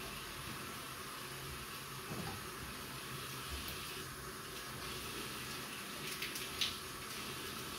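Tap water running into a bathroom washbasin as hands work in the stream, with a few sharp clicks a little after six seconds in.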